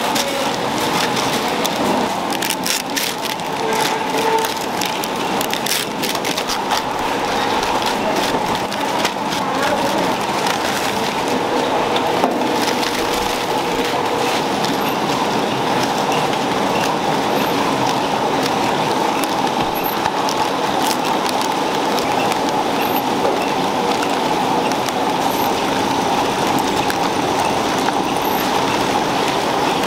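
Steady running noise of food-packaging machinery, with sharp crackling of plastic wrap being handled during the first ten seconds or so.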